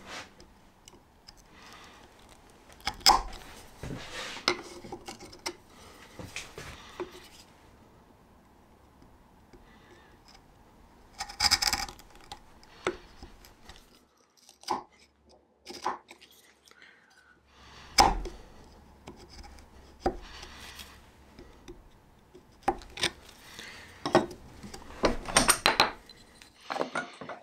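Scattered sharp knocks and taps of wood and hand tools being handled on a workbench, with a few short scraping strokes in between.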